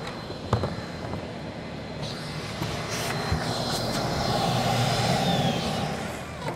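Dust-extraction vacuum motor running steadily with a thin whine, growing louder from about two seconds in and easing off near the end.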